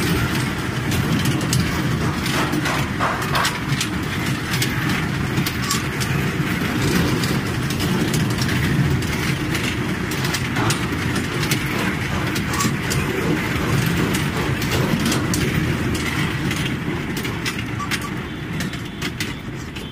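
Kiddie amusement train ride running on its small track: a steady rumble with irregular clicks and rattles. It fades near the end.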